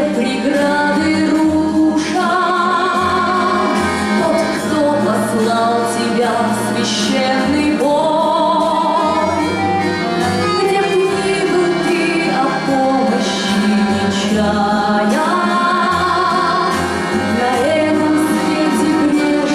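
A woman's operatic voice singing long, held notes with vibrato over instrumental accompaniment.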